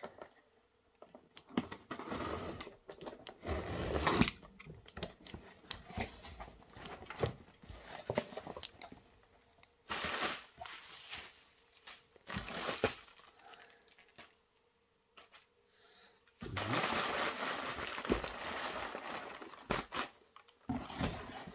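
A cardboard shipping box being opened by hand: packing tape slit and pulled, cardboard flaps folded back, and plastic air-cushion packing rustled and crinkled, in irregular handling noises with a few seconds of continuous crinkling near the end.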